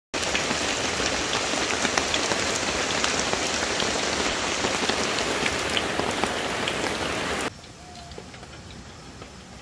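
Heavy tropical rain falling steadily, a dense patter of drops on leaves and stones. It cuts off suddenly about three-quarters of the way through, leaving a much quieter stretch with faint ticks.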